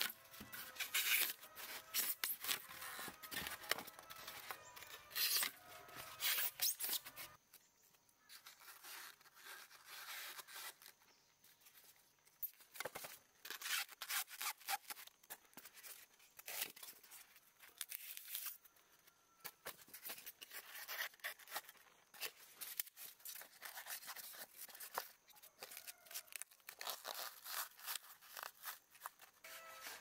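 Kitchen knife cutting and breaking white polystyrene foam sheets: dry, squeaky scraping and crackling in quick runs. There is a quieter spell about a quarter of the way through, then more rubbing and scraping of foam as the pieces are handled.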